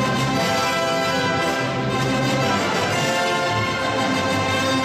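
Background orchestral music with brass, playing long held chords.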